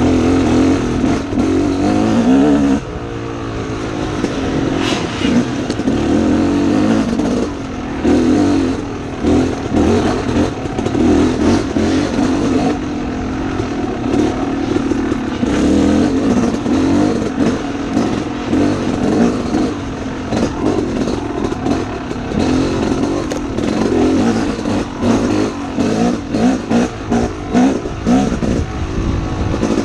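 Dirt bike engine revving up and down as it is ridden on and off the throttle along a tight trail, its pitch rising and falling every second or two. Near the end the throttle goes choppy, with quick short blips.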